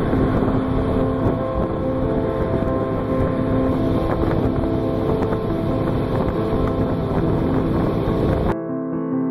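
Motorboat running at sea with wind buffeting the microphone, and keyboard music playing over it; the boat and wind noise cut off suddenly near the end, leaving only the music.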